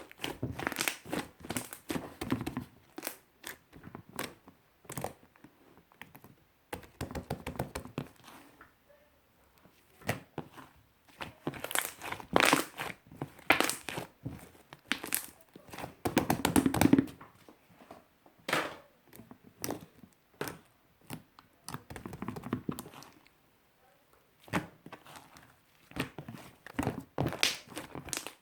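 Fluffy shaving-foam slime being squished and pressed by hand, giving clusters of quick sticky clicks and crackles in bursts of a second or two with short pauses between.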